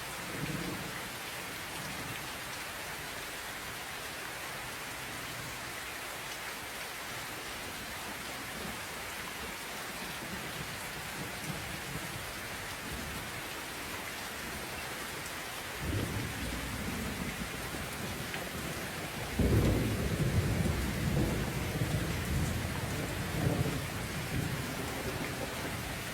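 Steady rain falling, an even hiss, with thunder rumbling in low more than halfway through and then a louder, longer roll of thunder that carries on to the end.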